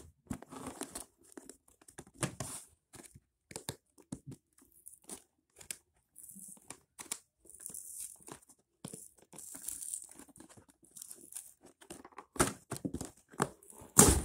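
A LEGO set's cardboard box being torn open by hand: irregular tearing and scraping of cardboard with handling rustles, and a loud knock near the end.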